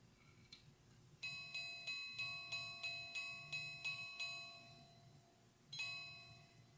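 The small watch set in a Frères Rochat singing-bird box striking a bell-like chime: a faint click, then about ten even, ringing strikes at about three a second, and one more strike after a short pause.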